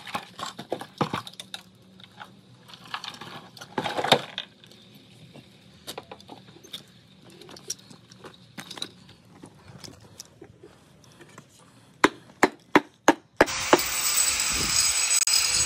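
Hand tools knocking and scraping on fresh concrete steps in scattered strikes, with a quick run of about five sharp knocks shortly before the end. Then a handheld power grinder starts abruptly, running steadily with a high whine as it grinds the concrete.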